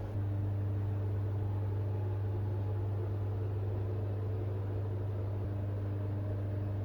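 CNC milling machine running with a steady low hum and a fainter, higher steady tone above it.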